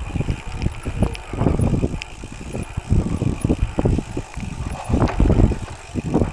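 OPEN U.P. gravel bike rolling over a rutted dirt trail: tyres rumbling with irregular bumps and jolts, plus a few sharp knocks.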